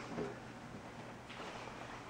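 Quiet kitchen room tone with a faint click or two as cups and glasses are handled on a countertop.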